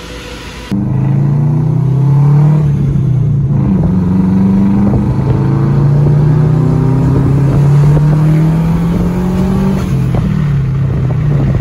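2002 Subaru WRX's turbocharged flat-four engine running hard on a chassis dyno. It starts abruptly under a second in, and its pitch holds fairly steady with small rises and dips.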